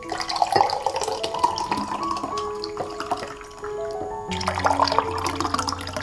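Thick juice pouring from a glass jar into glass mugs, splashing as the mugs fill, in two pours with a short break a little past halfway. Background music plays throughout.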